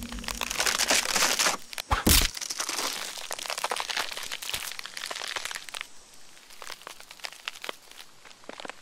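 Plastic snack wrapper crumpled by hand: dense crinkling for about two seconds with a sharp crack just after, then fainter, scattered crinkles as the crumpled wrapper sits on the wooden counter.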